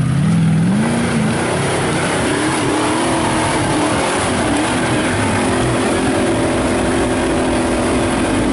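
Rock bouncer buggy's engine revving under load as it climbs a steep hill. The pitch rises about a second in, then stays high and wavers up and down with the throttle.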